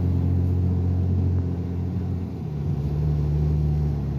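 Car engine and road noise heard from inside the moving car, a steady low drone whose note dips and changes pitch about halfway through, as with a gear change or a change of speed.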